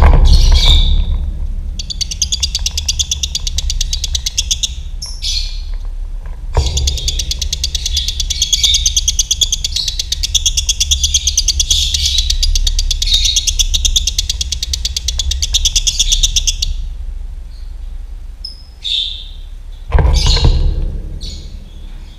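Lovebird singing its 'ngekek' song, long, fast rattling trills: a short run about two seconds in, then an unbroken run of about ten seconds, with a few short squeaky calls before and after. A steady low rumble of background noise sits underneath.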